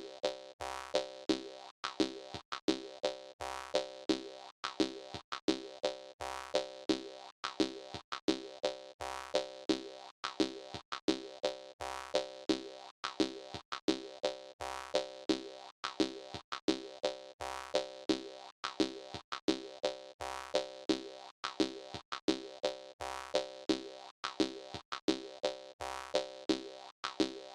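Jaw harp music: rhythmic twanging plucks in a steady, repeating pattern.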